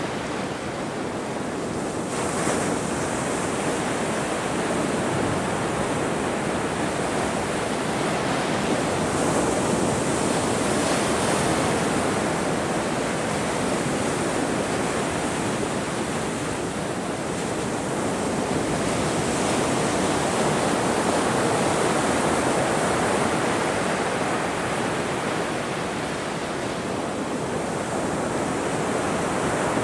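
Ocean surf: a continuous wash of breaking waves that swells and eases gently every several seconds.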